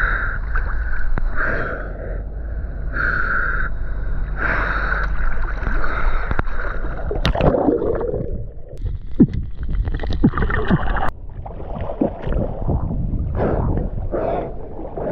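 River water sloshing and splashing around a swimmer's arms and body, turning muffled and gurgling while he is under water in the middle of the stretch.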